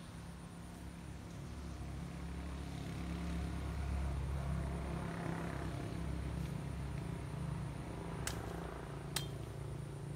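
A low engine hum that swells in the middle and eases off, like a motor vehicle passing unseen. Near the end come three short, sharp clicks, one with a brief ringing tone.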